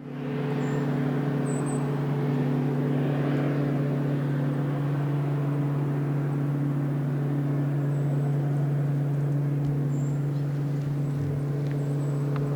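Boat motor running at a steady speed on the lake, a constant even-pitched engine drone.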